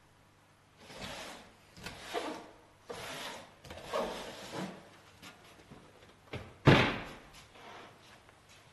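Handling noises: several short scraping, rustling sounds, then a single sharp knock, the loudest, near the end.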